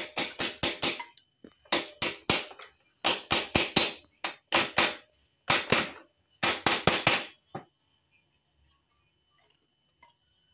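Hammer blows on metal in quick clusters of about four to six strikes with short pauses, stopping a little past halfway through. The hammering is part of replacing a scooter's steering-head bearings.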